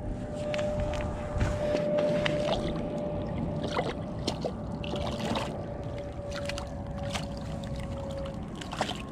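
Smallmouth bass splashing in a water-filled ice-fishing hole as it is lifted out by hand, several short splashes. Under it, a steady hum that sinks slightly in pitch over a low rumble.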